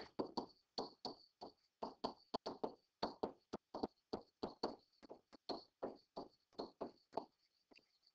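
A pen stylus tapping and scratching on a digital writing surface while handwriting words: a faint, uneven run of light clicks, about four a second.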